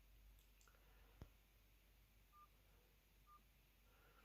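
Faint, short single-pitch keypad beeps from a Mobistel EL420 Dual mobile phone as its menu keys are pressed, three of them about a second apart. There is one sharp click a little over a second in.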